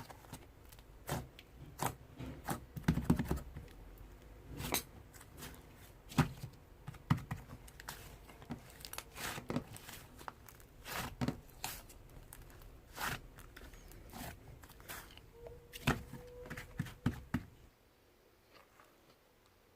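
Slime squished and pressed by hand, giving irregular sticky clicks, pops and crackles. The sounds stop shortly before the end.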